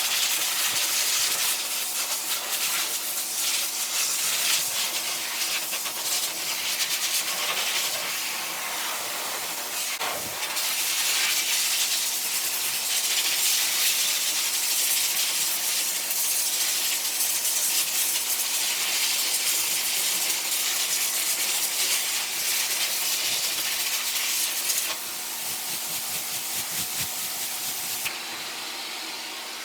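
Pet blow dryer blowing a steady, loud rush of air while drying a poodle's coat. The level shifts a few times, with a brief knock about a third of the way in, and drops twice near the end.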